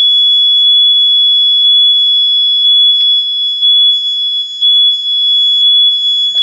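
Nighthawk carbon monoxide detector's alarm sounding in test mode: a loud, piercing high-pitched tone, held steady with a slight pulse about once a second. It set off instantly on the test button instead of after the usual few seconds' hold.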